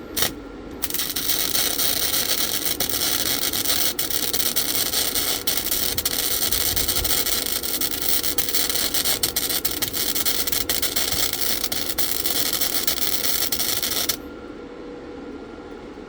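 Lincoln flux-core wire-feed welder arc, with the wire speed turned down, crackling and sizzling in one continuous bead. There is a brief first strike just at the start, then the steady crackle with sharp pops through it, which cuts off abruptly about 14 seconds in.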